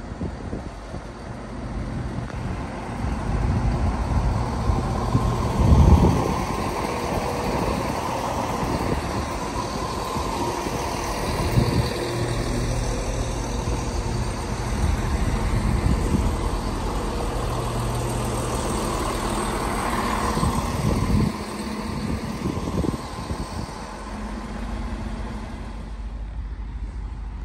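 Diesel train engine running steadily, with a low hum and a few short knocks, the loudest about six seconds in.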